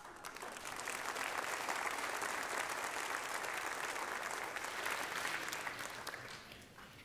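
Congregation applauding: the clapping swells within the first second, holds steady, then fades out over the last couple of seconds.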